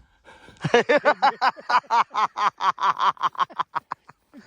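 A person laughing: a long run of quick, rhythmic 'ha' pulses, about seven a second, that speed up and fade out near the end.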